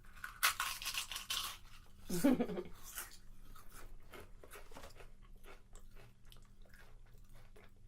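Crisp potato chips being bitten, with a loud crunch in the first second or so, then chewed in a long run of small crunches.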